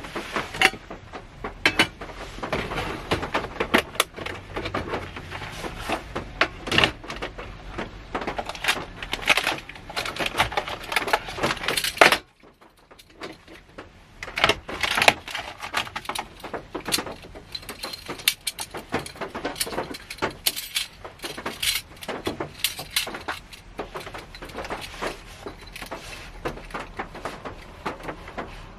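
Rain striking the roof and body of a Honda Step Wagon minivan, heard from inside the cabin as a dense, irregular stream of sharp drop ticks. It cuts off suddenly about twelve seconds in and comes back a couple of seconds later.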